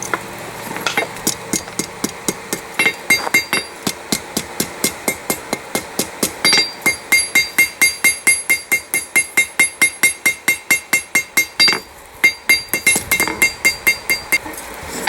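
Hammer striking hot steel on an anvil in a fast, even rhythm, about three to four ringing blows a second, with a short pause about twelve seconds in: a railroad spike being forged down into a knife blade.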